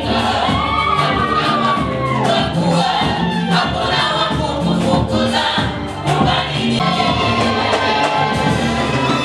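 A gospel choir singing live through a PA system, over a band with a bass line and a steady beat.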